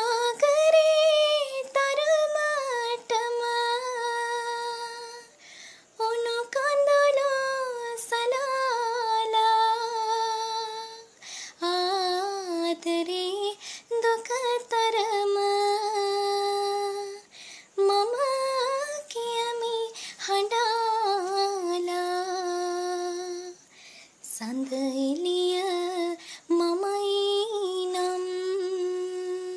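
A woman's solo voice singing a slow, unaccompanied melody in long held phrases, a few seconds each, with short breaks for breath.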